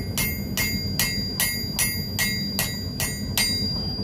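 Hand hammer striking hot iron on an anvil, shaping a forged chain link: about two and a half blows a second, each with a bright ringing note. The blows stop about three and a half seconds in.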